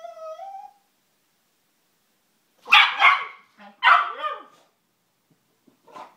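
A cocker spaniel–pug mix dog barking: a quick pair of barks about three seconds in, another about a second later, and a faint short one near the end. A drawn-out, falling whine trails off in the first second.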